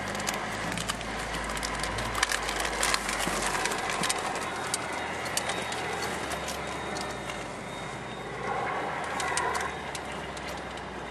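Jeep Wrangler JK driving slowly over a dirt and gravel trail, heard from inside the cab: a low engine rumble under a steady rough noise, with many sharp clicks and rattles from loose stones and the bouncing vehicle, thickest in the first few seconds.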